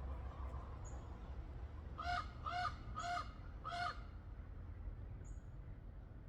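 A crow cawing four times in quick succession, about half a second apart, starting about two seconds in. The calls are loud.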